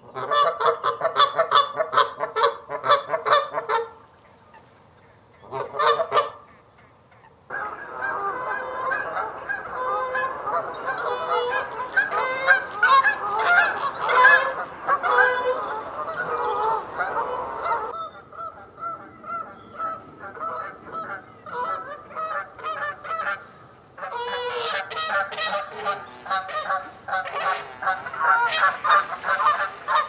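Canada geese honking: rapid strings of loud, nasal honks from several birds, overlapping into a dense chorus for much of the time. The calling comes in bouts, breaking off for a few seconds twice near the start.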